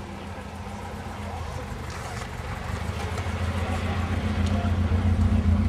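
Opel GT's four-cylinder engine running at a steady speed, growing louder as it goes.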